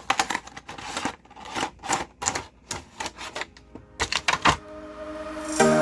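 Plastic blister and cardboard packaging of a Hot Wheels 5-pack clicking and crackling in quick, irregular snaps as it is pried open by hand. Music comes in near the end.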